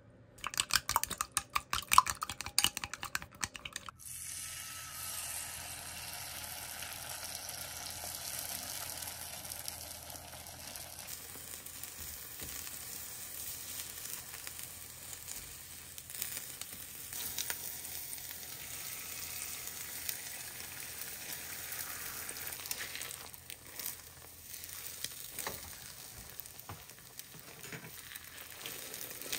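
Chopsticks rapidly beating eggs in a cup, clicking against its sides for about four seconds. Then beaten egg sizzles steadily in a square omelette pan on a gas burner, with scattered taps and scrapes of chopsticks and a spatula as the omelette is rolled.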